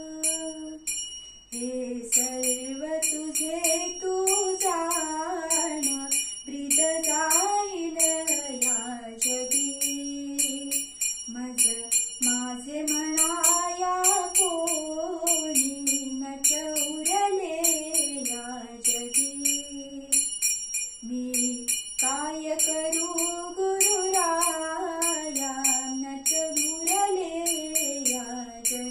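A woman singing a Marathi devotional bhajan in long melodic phrases with short breaks between them, keeping time with small brass hand cymbals (taal) struck in a steady ringing beat.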